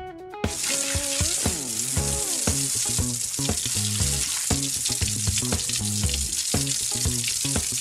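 Water running from a toy bathtub's tap, a steady hiss that starts about half a second in, over light background music.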